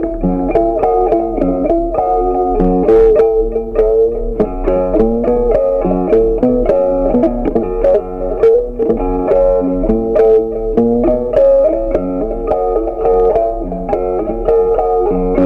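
Background music: a plucked guitar tune with a steady run of notes.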